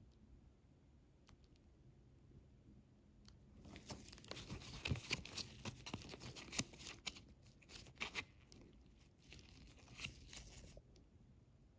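A sheet of star nail stickers crinkling and crackling as it is flexed and handled in gloved fingers. A quick run of small crackles and clicks starts about three and a half seconds in and stops shortly before the end.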